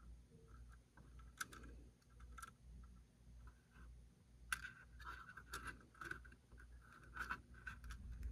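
Faint, scattered clicks and light scraping of small model parts being handled and pushed into place on a model locomotive, over a low steady hum.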